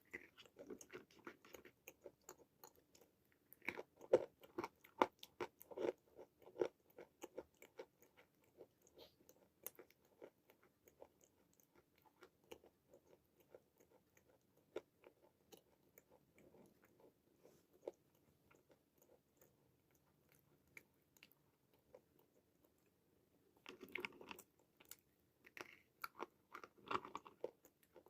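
Close-up biting and chewing of white khadi, an edible chalk: dense, crisp crunches. The crunching is busiest about four to seven seconds in and again near the end.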